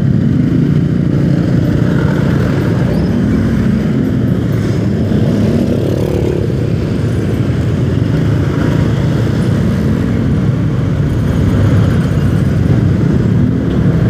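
Motorcycle engine running at low speed in slow, congested traffic, its pitch rising and falling every few seconds as it creeps forward, with the engines of surrounding motorcycles and cars mixed in.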